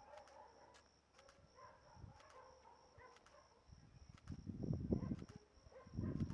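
Faint outdoor ambience: a steady high insect drone with clicks coming in pairs about once a second, and a few wavering animal or bird calls. Two deep rumbles, about four and six seconds in, are the loudest sounds.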